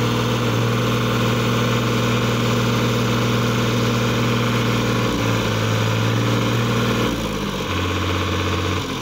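New Holland TT55 tractor's diesel engine running hard at steady revs while the tractor is stuck in mud; the revs drop slightly about five seconds in and fall further about seven seconds in.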